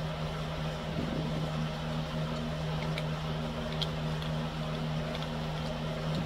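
Steady low machine hum, with a few faint clicks about halfway through.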